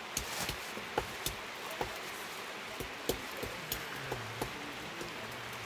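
Steady rain, with scattered sharp clicks and taps.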